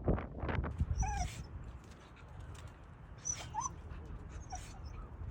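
Coastal birds calling: a handful of short, whining calls, each a quick bend in pitch, spaced a second or two apart. Wind buffets the microphone in the first second.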